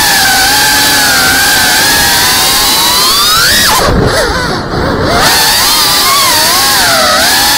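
FPV racing-quadcopter motors and propellers whining, the pitch rising and falling with the throttle. A little over three seconds in, the whine climbs and then drops sharply as the throttle is chopped for a dive, goes dull for about a second, and swoops back up as power is punched in again.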